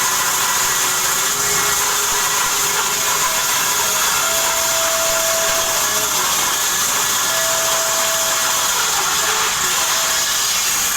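Electric power tool motor running steadily at constant speed, a loud even hiss-and-whine that cuts off at the end.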